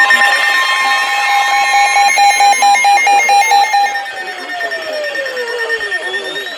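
Emergency Alert System attention tones: several steady alarm tones sounding together, one of them pulsing rapidly on and off about two seconds in. About four seconds in the level drops and a tone glides down in pitch.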